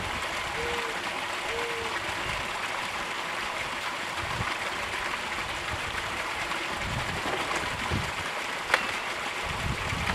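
Steady rush of pumped water running down a small highbanker sluice and pouring off its end into a tub. A single sharp knock comes near the end.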